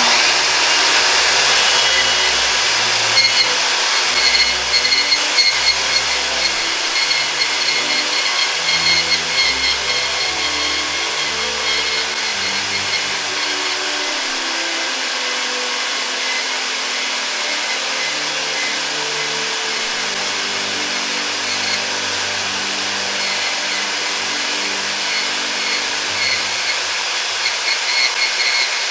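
Portable band saw starting up and cutting steadily through a thick metal pipe, with a continuous grinding hiss and a high whine from the blade in the metal.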